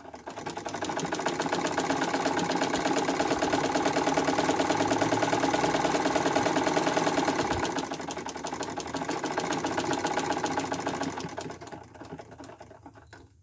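Sewing machine running and stitching fast with a rapid, even clatter. It builds up at the start, slows briefly partway through, picks up again, and winds down near the end.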